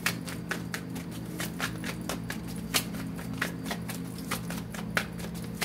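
A deck of tarot cards being shuffled by hand: irregular sharp clicks and taps as the cards slap against each other, over a steady low hum.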